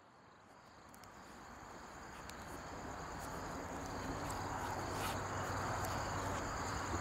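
Crickets chirping in a steady pulsing trill over a low hum, the whole ambience fading up from silence. A few faint clicks, the clearest about five seconds in.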